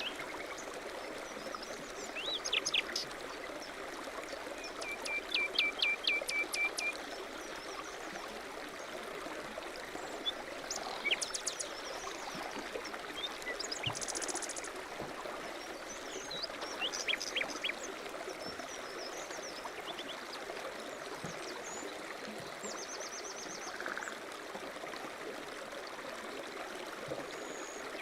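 Steady rush of flowing stream water with songbirds chirping over it: short series of quick notes and trills every few seconds, including a high buzzy trill about halfway through.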